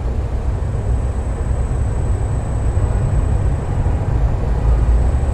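Steady low rumble with an even hiss over it, swelling a little near the end.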